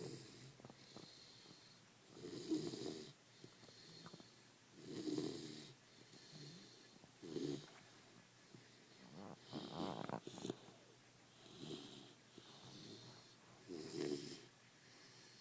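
A sleeping pet snoring loudly, about one snore every two to two and a half seconds, with a longer, stronger rattling snore near the middle.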